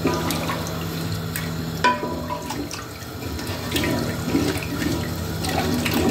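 Thin nihari gravy sloshing and splashing as a wooden spoon stirs it in a metal cooking pot, with a sharp knock and short ring about two seconds in. A steady low hum runs underneath.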